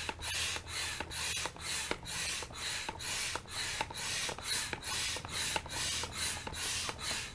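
Manual air pump inflating a chamber of an Intex Excursion Pro inflatable kayak: a steady rhythm of rushing-air strokes, about two a second.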